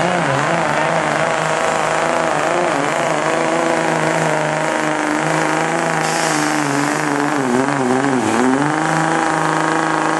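Diesel pickup engine at full throttle under heavy load, pulling a weight sled. The pitch holds high with small wobbles, sags briefly about eight seconds in, then comes back up.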